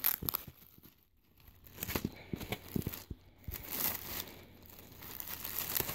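Clear plastic bag around a folded t-shirt crinkling in irregular bursts as a hand presses and grips it, with a brief quiet stretch about a second in.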